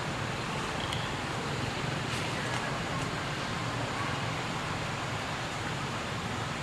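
Steady outdoor background noise: a constant hiss with a low hum, and a few faint short high sounds about one to two and a half seconds in.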